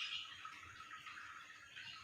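Lovebird call fading out at the start, then a quiet gap with only faint, soft lovebird chatter before the next call.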